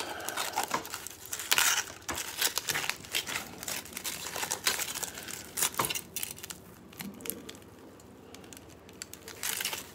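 Tin foil crinkling and crackling as it is peeled by hand off a small tin of beard butter, in irregular handling noises that thin out and go quieter for a couple of seconds near the end.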